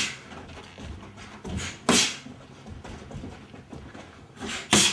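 Punches in a boxing-glove drill: a few quick, sharp bursts, a pair about a second and a half to two seconds in and the loudest near the end.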